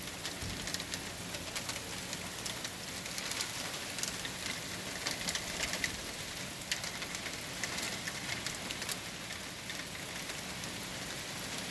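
Rain falling steadily, with many scattered drops and drips pattering sharply, during the calm of a hurricane's eye.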